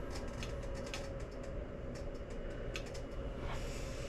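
Raindrops ticking on a hard surface: irregular light clicks over a steady low rumble with a faint steady hum.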